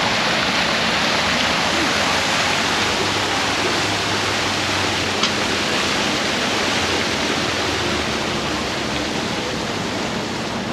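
Fountain jets splashing into a shallow pool: a steady, dense rush of falling water that eases slightly near the end, with one brief click about five seconds in.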